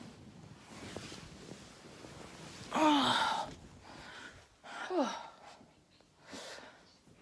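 A woman groaning twice with effort as she heaves herself out of bed, each groan breathy and falling in pitch, over a low rustle of bedding.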